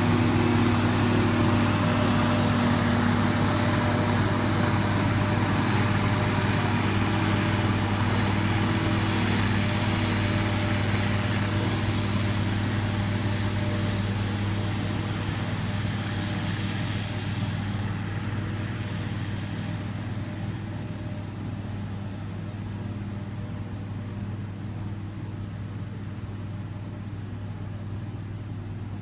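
Claas Jaguar forage harvester running under load while chopping and blowing out grass, a steady engine drone with a strong low hum. It grows gradually fainter as the machine moves away.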